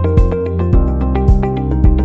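Background music with a steady beat: a low drum hitting about every half second under sustained instrumental notes.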